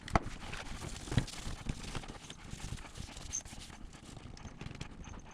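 Fingernails scratching and scrubbing at baked-on grime on a dishwasher's rubber door seal, with irregular light knocks and clicks from handling the door parts.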